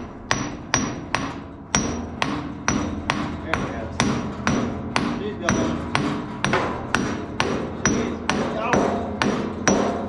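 Hammer blows on steel, about two a second and steady, each with a short metallic ring: a heavy keyed part being driven onto a windrower shaft far enough for its retaining bolt to start.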